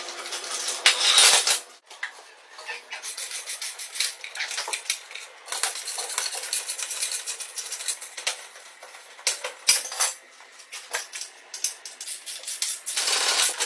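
Metal clinking and scraping of a spanner on rusted nuts and bolts as an old Honda CG125 motorcycle is dismantled, in irregular runs of short clicks and clanks.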